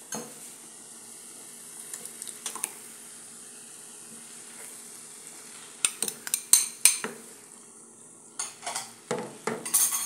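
Ground beef mixture sizzling softly in a frying pan. From about six seconds in come a run of sharp clinks, knocks and scrapes as tomato sauce is tipped from a glass bowl into the pan and stirred in with a spoon.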